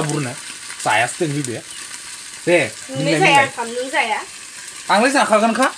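Food sizzling as it fries in a pan, a steady hiss heard under people talking.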